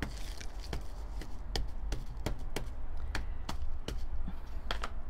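An ink pad dabbed straight onto a textured paper page on a tabletop: a string of light taps, about two to three a second.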